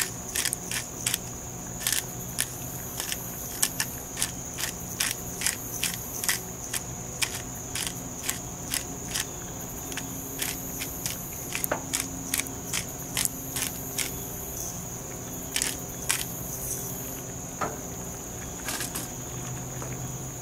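Black peppercorns being cracked in a twist-top pepper grinder: a quick, uneven string of sharp clicks, a few a second, thinning out near the end. A steady high insect trill runs behind.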